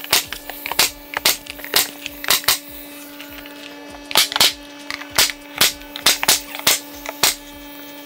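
Pneumatic staple gun firing into baseboard trim, a string of sharp shots at irregular spacing, about two a second, over a steady hum.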